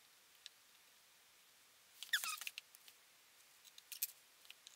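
Faint handling sounds of a small steel block on a machined aluminium motor faceplate: a short burst of light metal clicks and a brief scrape about two seconds in, then a few soft ticks near the end.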